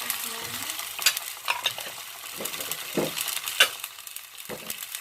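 Shallots, garlic and green chillies sizzling in hot oil in a pan, with a spatula stirring and scraping and knocking sharply against the pan several times.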